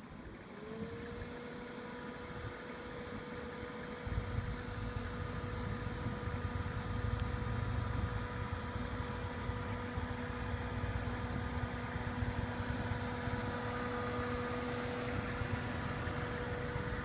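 A 2000 Dodge Neon's four-cylinder engine running at a steady pitch with a constant whine. A heavier low rumble comes in about four seconds in and holds.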